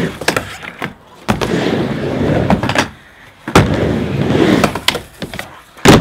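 Skateboard wheels rolling back and forth across a wooden miniramp, the rolling noise swelling and fading with each run across the ramp. It is broken by several sharp clacks of the board and trucks hitting the metal pipe coping, the loudest near the end.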